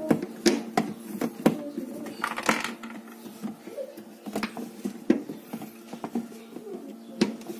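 Irregular sharp clicks and knocks of plastic refrigerator parts and screws being handled and fitted, over a steady low hum.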